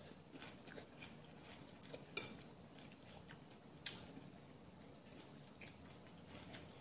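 Faint eating sounds: quiet chewing with scattered soft ticks, and two sharper clicks of a utensil against a dish, the first briefly ringing.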